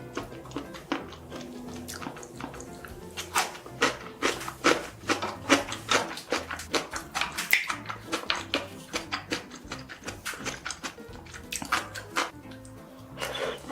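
Close-miked eating sounds: irregular wet smacks, clicks and slurps of chewing and eating, thickest in the middle, over soft background music.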